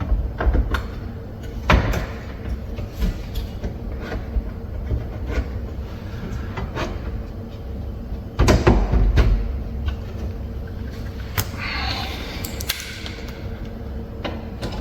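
Scattered knocks and clicks of a metal drawer slide and its bracket being handled and shifted against the cabinet's wooden side, with a louder cluster of knocks about eight and a half seconds in.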